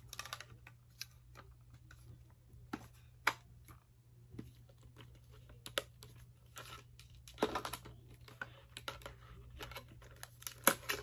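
A small metal Kodak Brownie 8mm movie camera being handled and turned over in the hands: scattered light clicks and taps, with a short cluster about seven and a half seconds in and another near the end.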